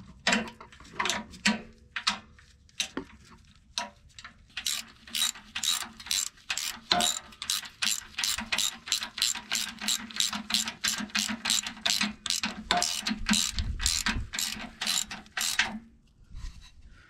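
A 12 mm ratcheting wrench clicking as it runs in a brake line bracket bolt. A few scattered clicks come first, then a steady run of about three clicks a second that stops about a second before the end.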